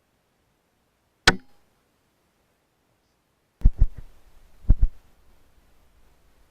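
A single sharp crack from a PCP air rifle shot about a second in. Later come two pairs of dull low thumps, like knocks of handling the rifle against the microphone.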